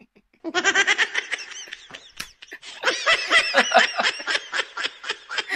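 A man laughing in rapid repeated pitched bursts: one bout starting about half a second in, a short break about two seconds in, then a second long bout.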